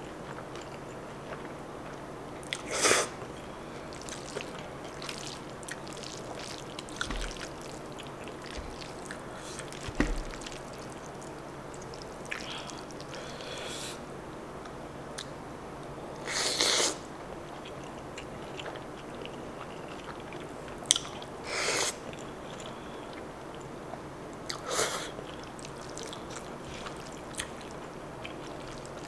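Close-miked eating sounds: chewing kimchi bacon angel-hair pasta, with small wet mouth clicks and four short, louder slurps of noodles.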